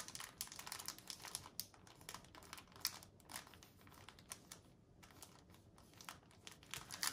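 Faint, irregular crinkling of a clear plastic drill bag and the scratch of a marker writing on it.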